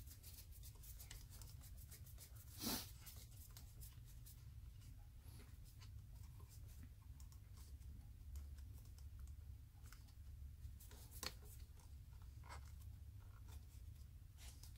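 Faint clicks and scrapes of a screwdriver turning terminal screws and of wires being handled in a compressor's metal wiring box, with one brief louder scrape about two and a half seconds in.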